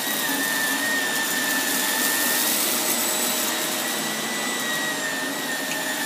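Shark Navigator Lift-Away Pro upright vacuum running with suction and brush roll on, pushed slowly over carpet with sand, cat litter and rice ground into it. A steady high motor whine sits over a rush of air.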